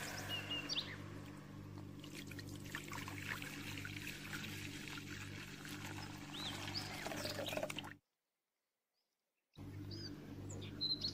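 Milk pouring in a steady thin stream into a wok, over a low steady hum. The sound cuts off about eight seconds in and comes back after about a second and a half.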